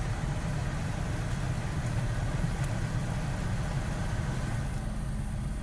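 2006 Toyota Sienna's engine idling with the HVAC blower running, a steady low hum; about four and a half seconds in, a steadier, slightly higher hum comes in as the climate system changes.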